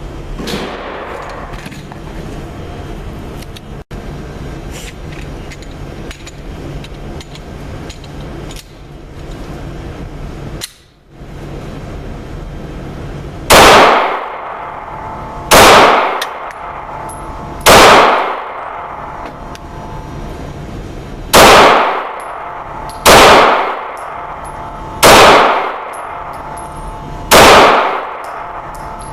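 Glock 19 9mm pistol fired seven single shots, spaced about two seconds apart, each ringing out with a short echo in an indoor range. For the first dozen or so seconds there is only a steady background hum before the shooting begins.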